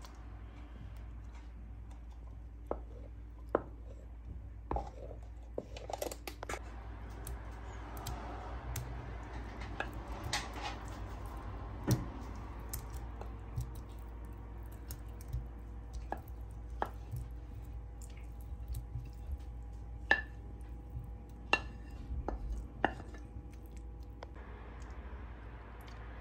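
Wooden spoon stirring thick creamy sauce in a stainless steel pan, with scattered light clicks and knocks of the spoon against the pan. A faint steady whine runs through the middle.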